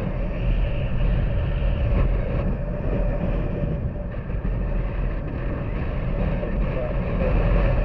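Honda Super Cub's small single-cylinder four-stroke engine running steadily under way, heard from the moving bike along with road and wind noise.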